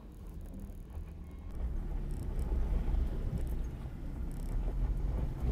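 Jeep Grand Cherokee ZJ driving over rough off-road tracks, heard from inside the cab: a low engine and drivetrain rumble with scattered knocks and rattles, getting louder about a second and a half in.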